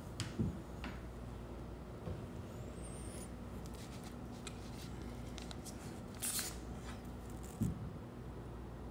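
Paper and wax-paper sheets being handled and shifted on a table, with scattered rustles, a burst of rustling about six seconds in and a couple of soft thumps, over a faint steady hum.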